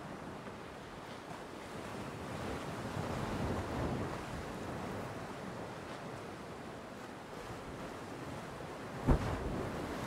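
Ocean surf breaking and washing up on the beach, a steady rush that swells a few seconds in, with some wind on the microphone. A single sharp, low thump stands out about nine seconds in.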